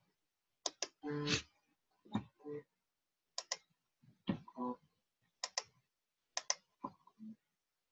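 Computer mouse clicks, mostly in quick double-click pairs, alternating with short, quiet single low notes played back by the Sibelius notation program as notes are entered and selected.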